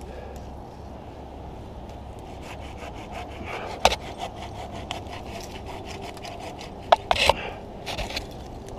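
Hand pruning saw cutting through a spruce branch in quick, even strokes, starting a couple of seconds in. A few sharp cracks stand out, one near the middle and a cluster about seven seconds in.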